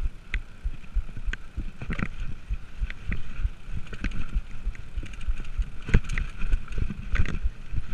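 Mountain bike riding along a dirt forest trail: a steady low rumble from the tyres and the moving air, broken by frequent irregular knocks and rattles as the bike goes over bumps.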